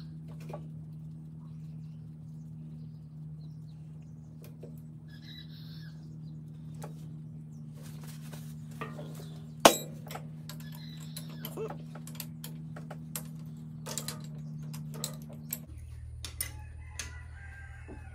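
Scattered clicks and clinks of hand tools and metal parts being handled at the engine wiring of a tractor, with one sharp metallic click about ten seconds in. Underneath runs a steady low hum that drops in pitch near the end.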